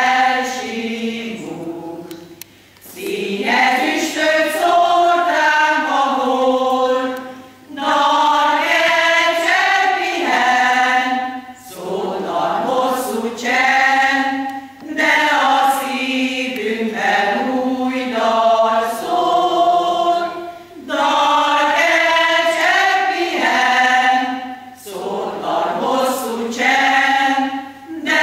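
Women's choir singing a folk song together, in phrases a few seconds long with short pauses for breath between them.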